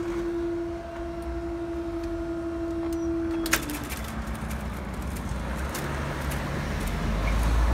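Level crossing barrier machine's hydraulic pump motor running with a steady hum as the boom raises, cutting off with a clunk about three and a half seconds in as the boom reaches upright. After that comes a low rumble of road traffic, growing louder near the end.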